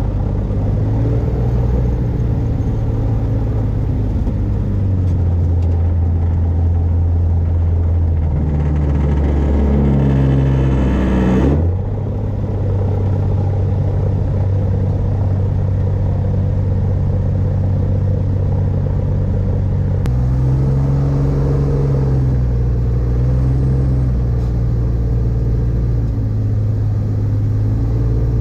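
Rotax 582 two-stroke engine and propeller of an X-Air microlight running at taxi power. The engine revs up for a few seconds about eight seconds in, then drops back sharply, with smaller throttle changes later on.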